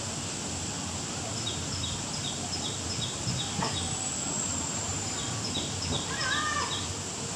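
A bird calling in runs of short repeated high notes, about three a second, over a steady high-pitched drone and general outdoor background.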